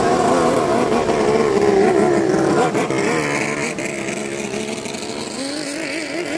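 Long-tail racing boat engine running, its revs wavering quickly up and down, with a climb in pitch about five seconds in.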